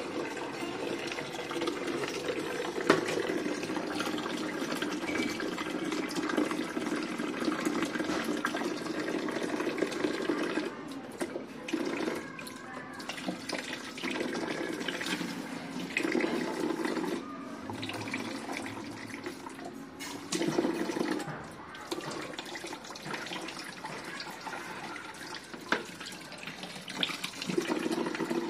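Water running from a wall tap into a plastic bucket, a steady splashing fill. In the second half the sound keeps dipping and coming back, as the stream is interrupted or changes, with an occasional knock.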